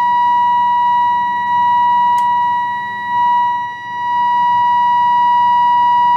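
Steady test tone from a signal generator, picked up by a 1940 Philips 206A valve radio and played through its speaker, as the oscillator trimmer is turned during RF alignment. The tone dips in loudness twice as the station is tuned in, then holds steady at full strength.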